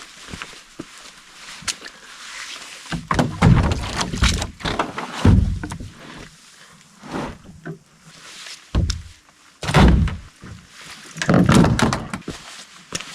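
Heavy hollow thumps and knocks, five or so, with rustling and clicks between them: camping gear being handled and packed while camp is torn down.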